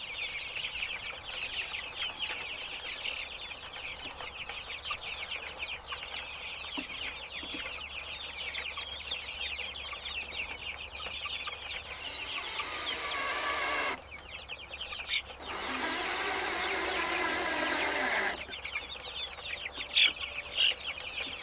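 Insects keep up a steady high chorus with a rapid even pulsing. Against it a cordless drill runs twice, about twelve seconds in and again for about three seconds shortly after, driving the screw of a cable clamp into the wooden frame. Two sharp clicks come near the end.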